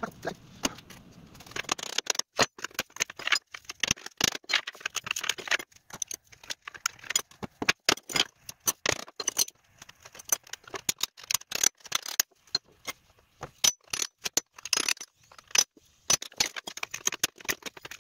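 Small metal tools clicking and clinking against an old wooden drawer side and the workbench as carpet tacks are pried and pulled out with a tack lifter and pliers. It comes as an irregular run of sharp clicks and small metallic rattles, picking up about two seconds in.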